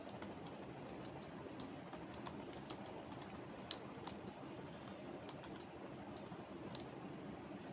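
Computer keyboard typing: irregular runs of key clicks, with one sharper click about halfway through, over a steady low background noise.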